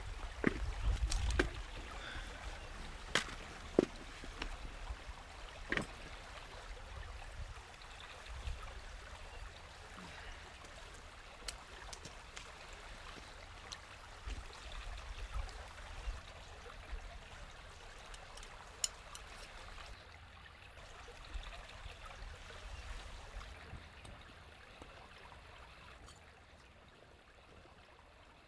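A small stream trickling steadily, with scattered sharp clicks and knocks throughout, more of them in the first few seconds.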